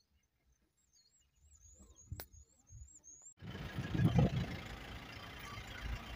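A faint high warbling whistle, then an abrupt switch to a steady rushing noise with a low vehicle engine rumble, loudest about four seconds in.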